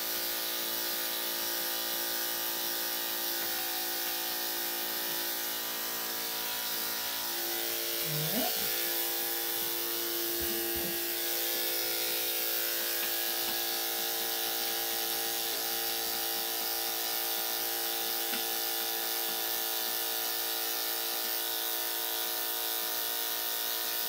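Electric dog grooming clippers with a number 7 blade running steadily as they trim fur around a Yorkshire Terrier's rear, a continuous even hum. A short rising sound comes about eight seconds in.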